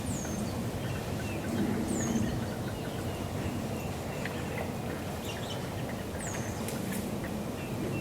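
A small bird giving a thin, high down-slurred call three times, over steady low background noise.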